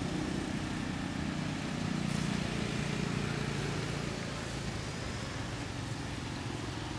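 Steady low rumble of background noise, swelling slightly about two seconds in.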